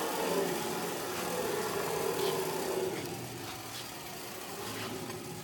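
Large router table's gantry rolling by hand along used 25 mm linear guide rails, the carriage bearing blocks giving a steady rolling whir. About three seconds in the sound drops lower, and it slowly fades as the gantry coasts.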